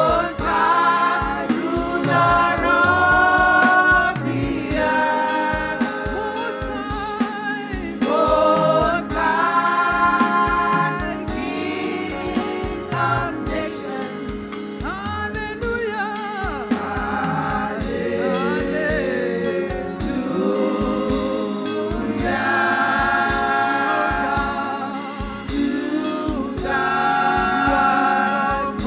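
Gospel worship song: voices singing long, wavering held notes over live band accompaniment with a steady drum beat.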